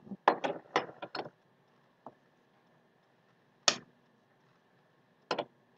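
Cookware and utensils clattering at a stove: a quick run of clicks and knocks in the first second, then a loud single knock near the middle and a close pair of knocks near the end, over a faint steady hum.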